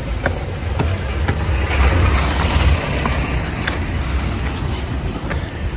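A car running on the road, its engine and tyre noise swelling about two seconds in, with a few footsteps on concrete steps.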